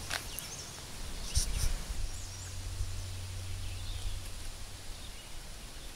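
Outdoor ambience: a low steady hum with faint bird chirps now and then, and a few brief knocks about a second and a half in.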